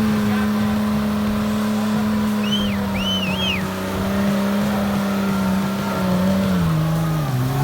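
Nissan Patrol Y61's 4.2-litre TB42 straight-six petrol engine running at steady revs. Its note eases slightly, then drops and wavers near the end as the throttle is worked. A few brief high squeaks come about three seconds in.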